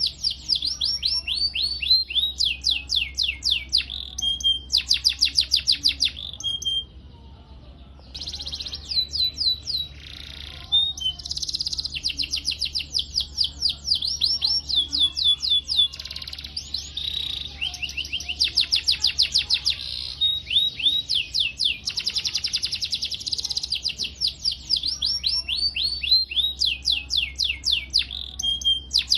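Domestic canary singing a long song of rapid repeated chirps and rolling trills, a training song of the kind played to teach young canaries. There is a short lull about seven seconds in.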